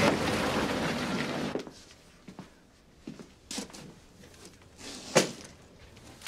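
A vintage sedan's engine and road noise as it drives, cutting off abruptly about a second and a half in. Then a quiet room with a few scattered knocks and handling sounds, the loudest a little after five seconds in.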